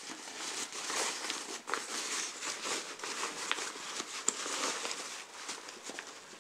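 Nylon Ozark Trail backpack being handled: fabric rustling and straps swishing, with a few sharp clicks from its buckles, the sharpest about four seconds in.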